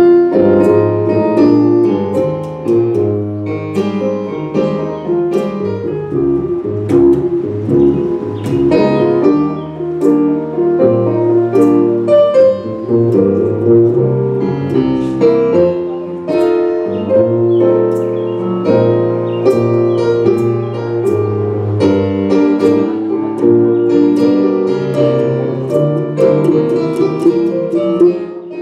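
Jazz piano solo on a Roland digital stage piano, a dense run of notes, accompanied by plucked upright double bass.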